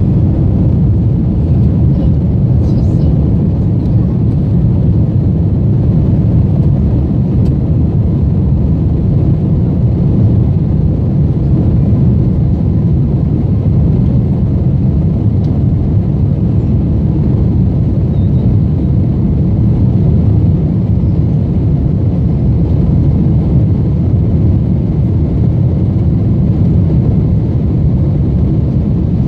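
Steady low roar of engine and airflow noise inside the cabin of an Airbus A320 airliner climbing out after takeoff.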